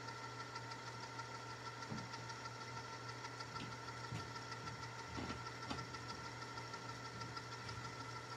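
VCR winding a VHS tape backward at high speed. The tape transport whirs and hums steadily, with a fast, even ticking and a few faint knocks.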